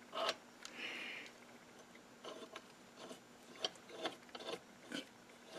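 Sash clamp's newly machined steel leadscrew turned by hand through the clamp's threaded jaw, its thread still dry and unlubricated. Faint, irregular metallic clicks and rattles with a brief scrape about a second in.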